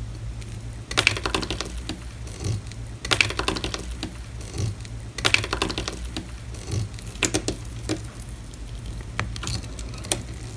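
A metal pick punching holes in aluminium foil stretched over clear slime: several bursts of rapid, sharp crackling clicks, then a few single clicks near the end. A steady low hum runs underneath.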